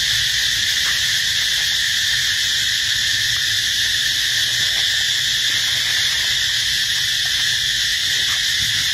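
Steady, high-pitched drone of an insect chorus, unbroken and even in level.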